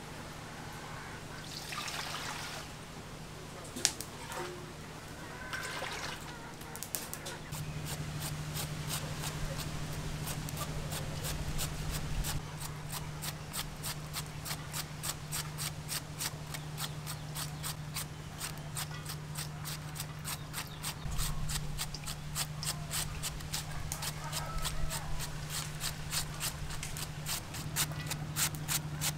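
Red cabbage being shredded with a hand shredder over a steel bowl: quick, even scraping strokes, about four a second, starting several seconds in.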